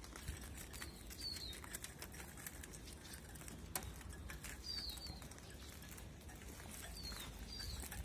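Clicking and rattling of a wire-and-wood songbird trap cage as it is handled, with wing flutter from the small bird inside. A few short, high, falling chirps come through, the first about a second in and two close together near the end.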